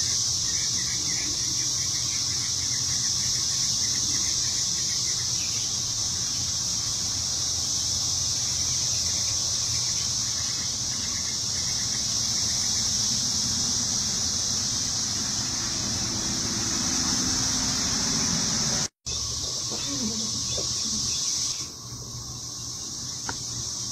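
Steady high-pitched drone of an insect chorus, with a faint low rumble beneath. The sound cuts out for an instant about three quarters of the way through, and the high drone drops away near the end.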